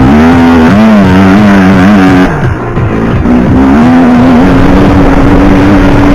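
A Yamaha Banshee two-stroke quad engine is being revved hard. Its pitch climbs and drops several times, it eases off briefly about halfway, and then it holds a steady high pitch.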